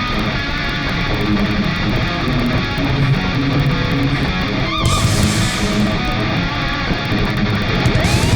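Heavy metal music with electric guitar, loud and continuous, with a rising glide starting just before the end.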